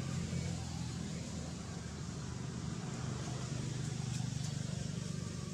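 A vehicle engine running steadily, getting slightly louder about four seconds in.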